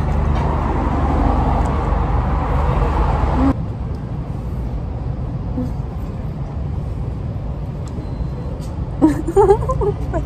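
Steady low outdoor background rumble that drops suddenly to a quieter level about three and a half seconds in. A person's voice is heard briefly near the end.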